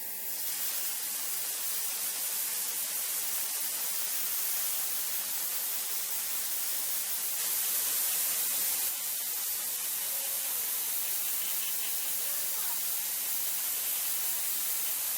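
Airbrush spraying Tamiya XF86 flat clear coat: a steady hiss of air, a little louder about eight seconds in.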